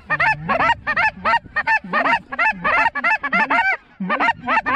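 A flock of geese honking: a rapid, overlapping string of short calls, several a second.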